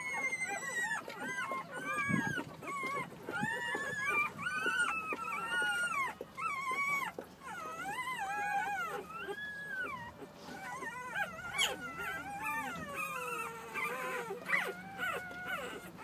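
Four-day-old Labrador–Staffordshire cross puppies crying and squealing, many high, arching whines overlapping one after another.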